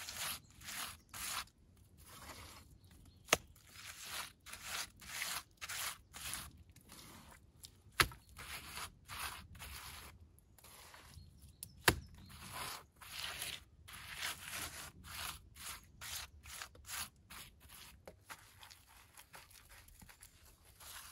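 Loose clay soil being scooped and packed by a gloved hand: a run of short scraping, crumbling strokes, one to three a second. Two sharp knocks, about 8 and 12 seconds in, stand out as the loudest sounds.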